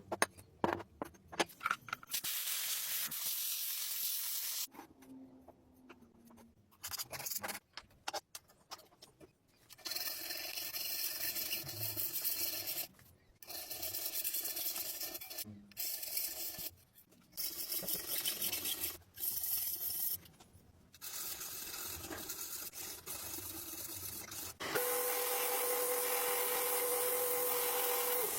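Abrasive scrubbing and sanding on the rusty steel of an old cleaver, in stretches of a few seconds with short pauses between, after a few light knocks at the start. Near the end a louder, steadier rubbing sets in with a steady hum under it.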